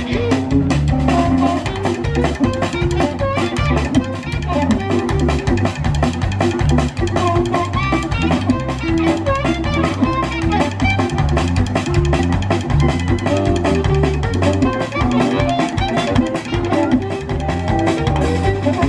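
Instrumental break in a song: guitar playing over drum kit and bass guitar with a steady beat.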